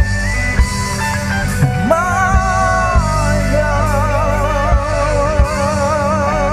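Live rock band playing: steady bass and drums, with a few kick-drum hits, under a sustained melody line whose held notes waver with vibrato.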